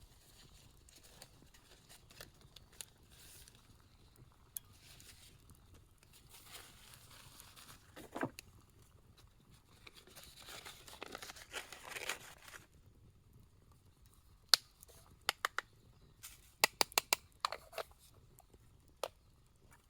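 Close handling noises: two spells of scraping or rustling, then a quick run of sharp clicks and taps.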